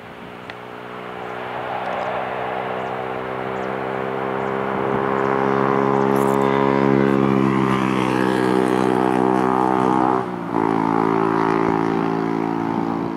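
Airbus A319-111's CFM56 jet engines running during the landing rollout, the noise growing much louder over the first several seconds and then holding, as is typical of reverse thrust after touchdown. There is a steady hum of several tones under a wide hiss, with a brief dip about ten seconds in.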